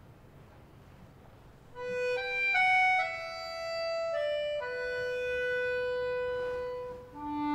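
Background music: after a quiet start, a slow melody of long held notes comes in about two seconds in.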